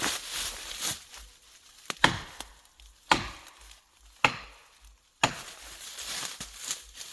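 Several hard strikes on the wood of a tree being felled, about a second apart, each sharp with a short ringing tail.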